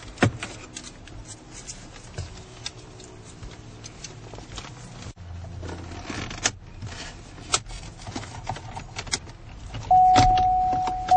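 Scattered small clicks, knocks and scrapes of car interior plastic trim and screws being worked loose by hand. Near the end comes a loud, steady beep on one pitch that lasts about two seconds.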